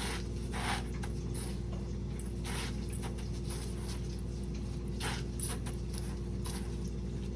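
Soft scattered rustling and crunching of dry panko breadcrumbs under a plastic-gloved hand as a shrimp is pressed and turned in a metal bowl, over a steady low electrical hum.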